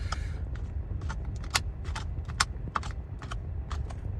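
Small, irregular clicks and taps of someone eating a vanilla Frosty with a spoon, about a dozen in four seconds, over a low steady rumble.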